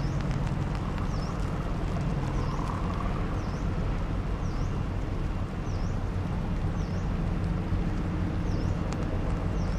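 A sand-carrying river boat's engine running with a steady low drone over wind noise. A bird repeats a short high chirp about once a second throughout.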